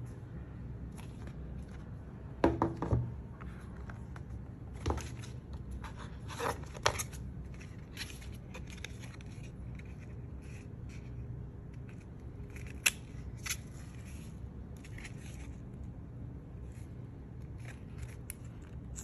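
Hands handling the cardboard and paper packaging of an Apple Watch Ultra: scraping and rustling as the insert lid comes out and the charger's paper-board pack is turned over, with light taps throughout. The loudest scrapes come about two and a half and seven seconds in, and there is a sharp click near thirteen seconds.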